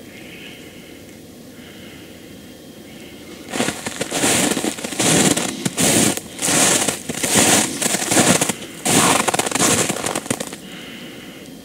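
Footsteps crunching in snow at a walking pace, about ten steps starting a few seconds in and stopping near the end.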